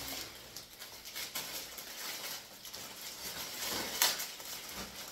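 Thin plastic packaging bags rustling and crinkling as they are handled and opened, with a sharp click about four seconds in.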